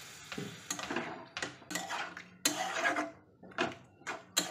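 Metal spatula stirring a wet curry in a metal kadai: a run of short scrapes and knocks against the pan, about two or three a second.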